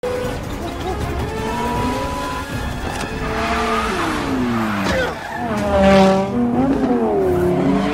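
Tires squealing and skidding as a red Dodge Viper slides sideways on wet asphalt, with its V10 engine revving. The squeals waver and glide in pitch, and the loudest comes about six seconds in, under a film score.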